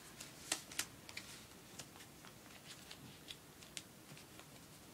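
Faint, scattered crinkles and ticks of paper being folded and creased by hand.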